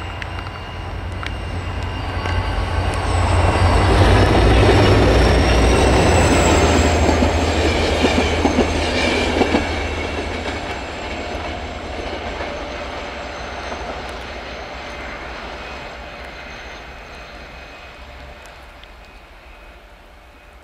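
Two GM diesel locomotives of HŽ class 2044, double-heading a passenger train, running past. Their deep engine rumble builds as they approach and is loudest about four to ten seconds in as the train goes by, then fades steadily as the coaches roll away. Thin high steady tones sound above the rumble.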